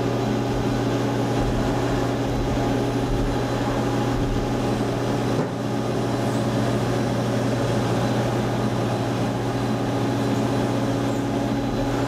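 CNC vertical machining center running a program in dry run mode, giving a steady mechanical hum with a brief dip about five and a half seconds in.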